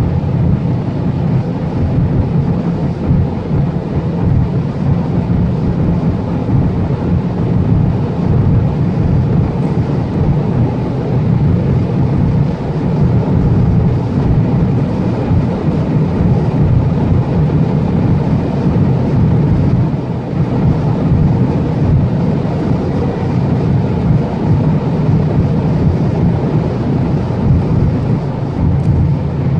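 Inside-cabin noise of a Volkswagen Jetta 1.4 TSI's turbocharged four-cylinder engine at speed: a steady, loud blend of engine drone at around 5,000 rpm, tyre and wind noise at roughly 200–220 km/h in sixth gear.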